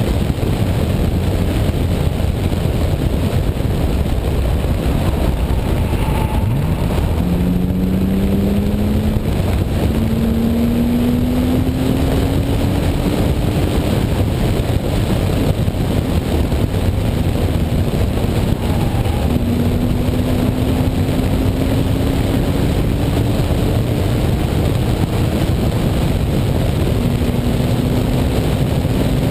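BMW E36 M3 at track speed, heard through heavy wind rush on an outside-mounted camera. Under the wind, the straight-six engine note climbs in pitch as the car accelerates: a quick rise about six seconds in, then long, slow climbs.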